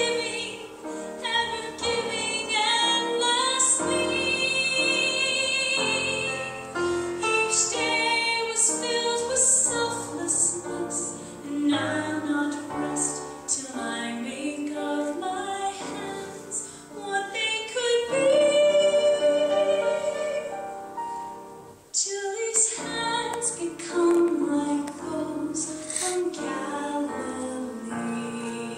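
A woman singing a slow solo song with accompaniment, with vibrato on her held notes and a brief break about 22 seconds in.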